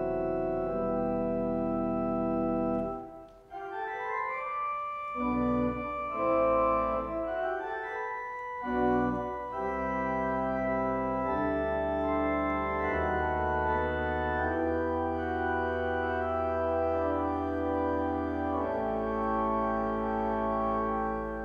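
Organ playing slow, sustained chords with long-held notes, pausing briefly about three seconds in before the chords go on.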